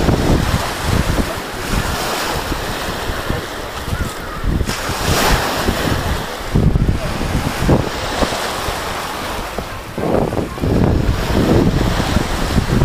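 Wind buffeting the camera's microphone in an uneven low rumble, over small waves washing onto a sandy shore.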